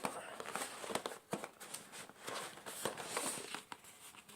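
Rustling, light knocks and scrapes of packaging and box contents being handled as items are taken out of the box.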